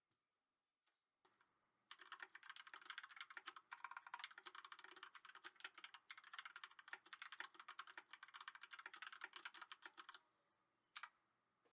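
Fast typing on a mechanical keyboard: a quick, dense run of faint key clicks starts about two seconds in and stops about ten seconds in, followed by one brief clatter near the end.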